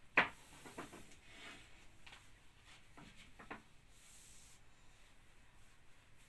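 A long thin wooden rolling pin (oklava) knocking and rubbing on a round wooden pastry board as thin baklava dough is lifted and rolled out. One sharp knock comes just after the start, then a few lighter taps and soft rubbing.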